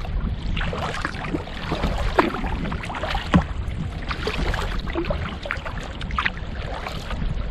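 Water splashing and slapping against a sea kayak's hull as it is paddled through choppy, windblown waves, with irregular splashes over a steady low wind rumble on the microphone.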